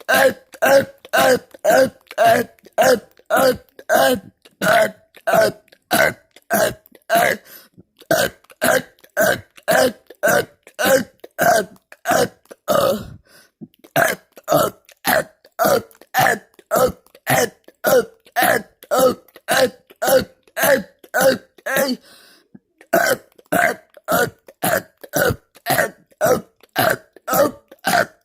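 A person burping over and over in quick succession, about two short burps a second, with two brief pauses, one about halfway through and one about three-quarters of the way through.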